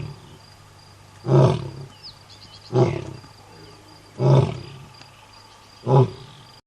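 A large animal giving four short, loud roaring calls, about a second and a half apart.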